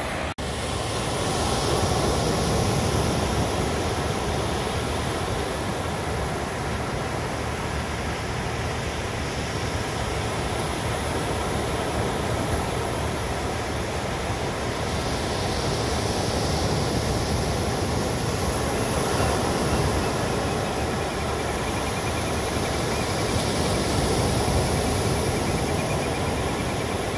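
Steady roar of ocean surf, swelling and easing slowly.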